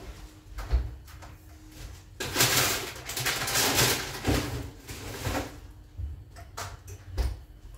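Plastic freezer bag rustling as it is pushed into the top freezer compartment of a fridge, followed near the end by a few knocks and clunks of handling at the freezer.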